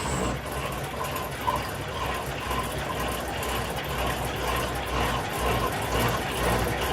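Machine-shop machinery running steadily, with a low rumble and a faint tone pulsing about twice a second.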